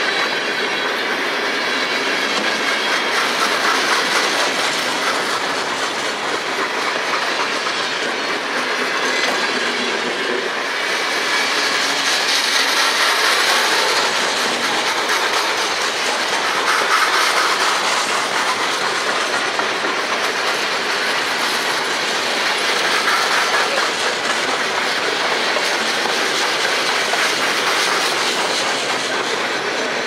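Freight train cars, centerbeam lumber flatcars and boxcars, rolling past close by: steel wheels running on the rails in a steady din.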